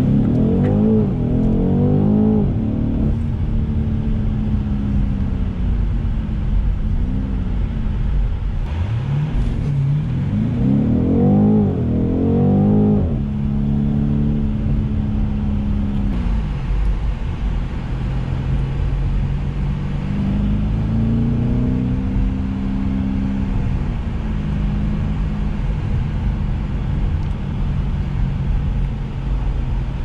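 BMW M850i's 4.4-litre turbocharged V8 heard from inside the cabin while driving: twice the engine pulls hard, its pitch climbing and dropping back several times in quick succession as it shifts up through the gears. Between and after these pulls it settles to a steady cruising hum.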